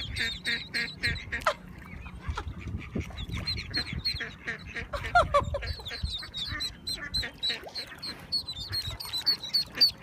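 Ducklings peeping rapidly in short, high calls, with a few lower falling calls from the mother duck calling to them about halfway through.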